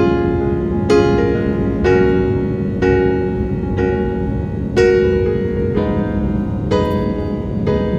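Background piano music, a slow run of chords struck about once a second.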